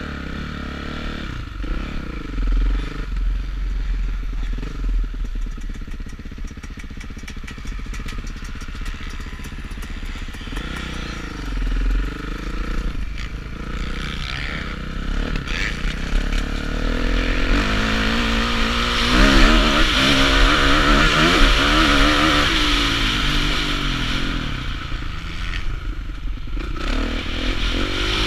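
Kawasaki KX450F four-stroke motocross engine, heard from the rider's helmet: revs rise and fall a few times at first, then it runs harder and louder from a little past halfway as the bike accelerates along the track, with wind rushing over the microphone.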